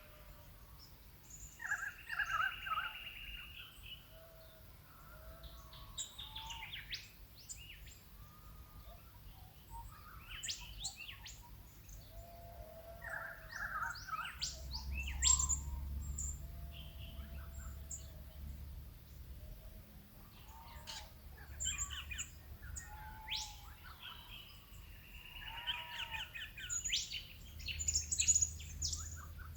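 A morning chorus of several Australian bush birds, with chirps, whistles and trills overlapping and coming in clusters: a trilling call about two seconds in and again near the end, with busier calling around the middle. Under it runs a faint low rumble that grows stronger in the middle and near the end.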